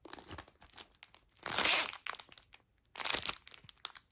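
Plastic packaging crinkling as it is handled, with short crackles throughout and two longer, louder spells of rustling, about a second and a half in and about three seconds in.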